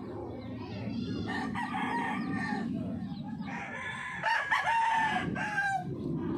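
Several roosters crowing, their calls overlapping. The loudest crow comes about four seconds in and is held for over a second, over a steady low background rumble.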